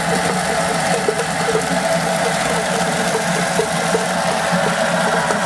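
Electric chestnut-peeling machine running: a steady motor hum with chestnuts knocking and tumbling in its abrasive drum as their skins are stripped off.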